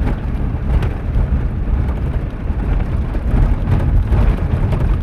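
A vehicle being driven fast over desert ground: a loud, steady low rumble of engine and tyres, with a few faint knocks.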